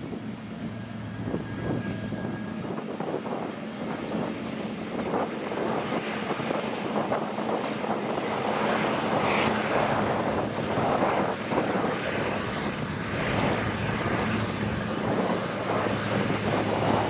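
Jet engines of an Etihad Boeing 777-300ER running with a steady hum and a rushing noise as the airliner moves along the runway, gradually growing louder.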